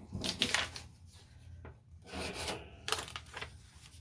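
Paintings being handled and slid against one another: rubbing, scraping rustles in three short bursts.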